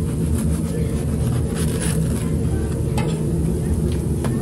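A large knife sawing lengthwise through a crusty bread loaf, with a few short crackling scrapes from the crust, over a steady low background rumble.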